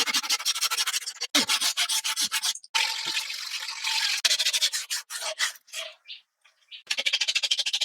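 Sanding by hand in rapid back-and-forth strokes, a dry rasping rub repeated many times a second. It stops briefly twice and pauses for about a second near the end.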